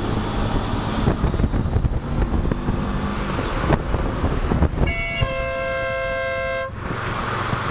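A motorcycle running along the road with steady wind noise on the microphone, then about five seconds in a vehicle horn sounds one steady blast lasting under two seconds as a car cuts in front of the bike.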